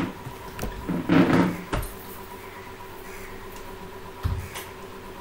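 A few short bumps and rustles of handling near the microphone: one at the start, a cluster about a second in and another near four seconds. Under them runs a faint steady electrical hum with a thin high tone.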